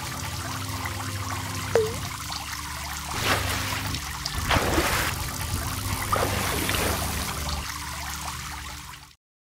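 Water trickling and running, with a few soft swishes and a short pitched blip about two seconds in; it cuts off suddenly just before the end.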